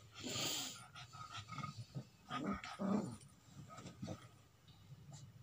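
Puppy making a series of short, soft vocal sounds while play-fighting with a cat, with a breathy noise in the first second.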